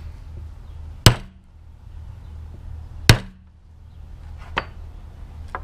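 Hammer striking a metal hole punch through masking tape into a wooden block, cutting out tape discs: two sharp blows about two seconds apart, each with a short ring, and a lighter knock near the end.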